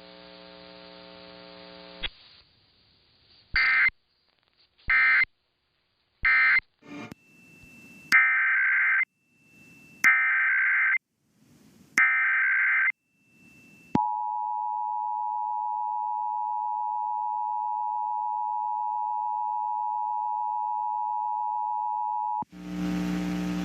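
Emergency Alert System broadcast signalling. Three very short digital data bursts close the previous message. Then come three one-second bursts of screeching digital header data, and the two-tone EAS attention signal held steady for about eight seconds. A low electrical hum runs for the first two seconds.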